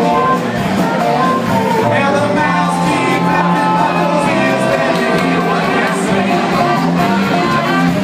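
Live blues-rock band playing loudly: bass, guitar and drums under a bending melodic lead line.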